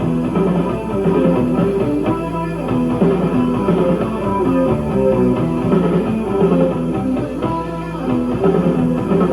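A rock band playing live, led by guitar over bass, with no singing.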